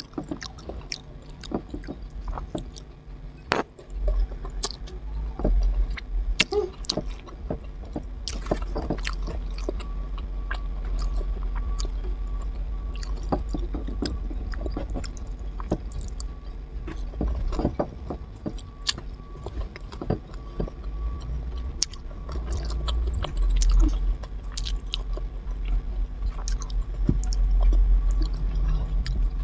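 Close-miked chewing: wet mouth smacks and small clicks of a person eating, over a steady low rumble that sets in about four seconds in.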